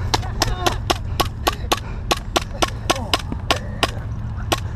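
Airsoft guns firing a rapid string of single shots, about four a second, each a sharp crack, over a steady low rumble.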